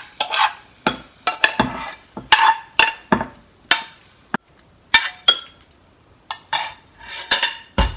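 Utensils clinking and scraping against a pot and a cup as simmered shiitake mushrooms and gourd strips are lifted out: a quick series of short knocks and scrapes, some ringing briefly, with a short pause past the middle.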